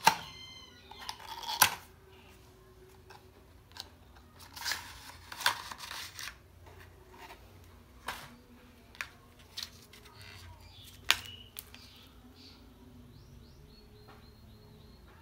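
Cardboard product box and card packaging tray of an adapter being opened and handled: scattered clicks and taps, with two stretches of rustling about five seconds in.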